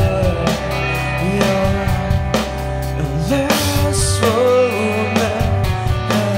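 Live emo rock band playing: distorted electric guitars, bass guitar and drum kit with steady drum hits, and a male singer's voice over the top.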